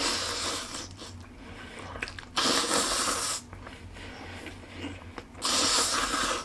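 A man slurping instant jjajang noodles (Chapagetti mixed with Shin Ramyun) from a bowl: three long, loud slurps, one at the start, one about two and a half seconds in and one near the end.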